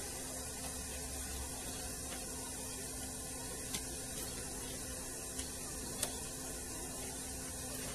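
Steady background hiss with a faint low hum, and a few light clicks as the TV set is handled.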